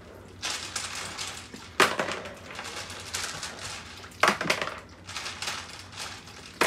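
Water sloshing in a plastic tub of glass marbles, with two sharp clacks of marbles about two and a half seconds apart, the second as a marble is dropped into an empty plastic bowl.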